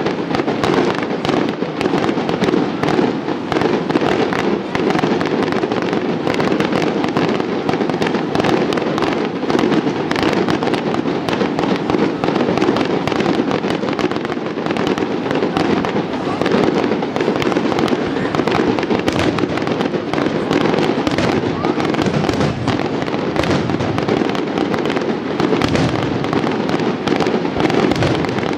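Fireworks display: a dense, unbroken barrage of rapid bursts and crackling that holds steady without a pause.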